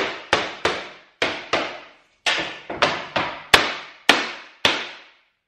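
About a dozen sharp knocks, often in quick pairs, as plasterboard is tapped back with a straightedge to bed it into its dot-and-dab adhesive and bring the wall level. Each knock dies away quickly, and the tapping stops near the end.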